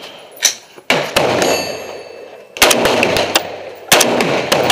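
AR-15 rifle shots: about five sharp reports at uneven intervals, the strongest near the first second, after two and a half seconds and near four seconds, each followed by a long echoing tail.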